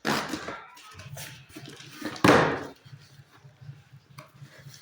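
Handling noises: a sudden knock at the start and a louder scraping rustle about two seconds in, over a low steady hum.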